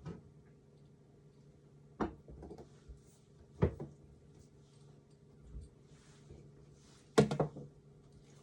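Knife knocking on a cutting board while a watermelon cucumber is cut into pieces: four separate knocks a second or more apart, the loudest near the end, over a faint steady hum.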